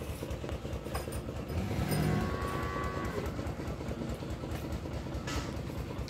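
A Holstein Friesian cross dairy cow lowing once, a single call of about a second, over a steady low rumble.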